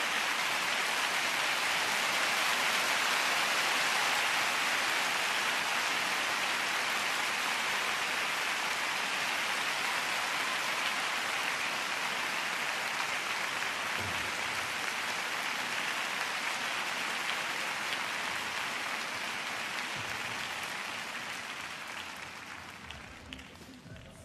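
Large arena crowd applauding a finished figure skating free program, a dense steady clapping that dies away over the last couple of seconds.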